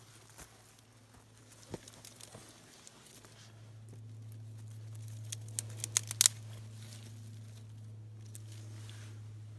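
Bundle of thin dry twigs being handled, broken and laid on a fire pit: crinkly rustling with scattered cracks, then a quick run of sharp snaps about five to six seconds in. A steady low hum sets in about three and a half seconds in and runs under it.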